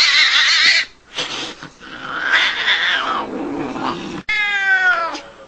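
A cat's rough, noisy cries, then one clear meow falling in pitch about four seconds in.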